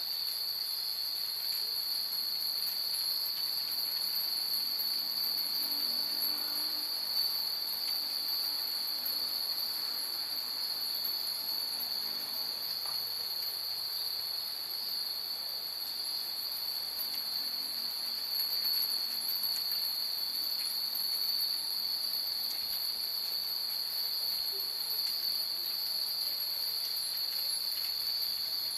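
Many Japanese wind chimes (fūrin) tinkling faintly and irregularly, over a steady high-pitched hiss.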